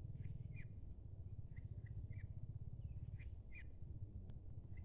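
Ducklings peeping: about nine short, high peeps at irregular intervals, over a faint low rumble.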